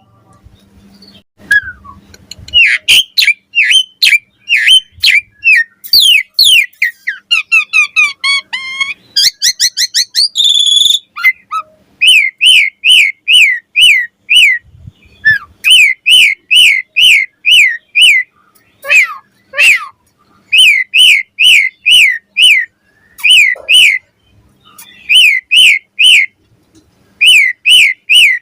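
Asian pied starling (jalak suren) singing: runs of loud, quick, falling whistled notes, about two a second, broken by a varied warbling and trilling passage a few seconds in.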